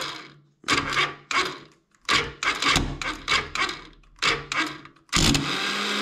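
Alfa 110 cc four-stroke engine being cranked by its electric starter in a string of short, crackling bursts, catching a little after five seconds in and then running steadily. The crackle on starting is the sign of a slack starter chain and a worn overrunning starter clutch.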